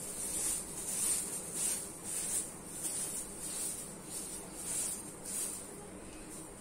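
Hand broom swept over a bed sheet in quick repeated strokes, a soft swish about every half second, stopping about five and a half seconds in.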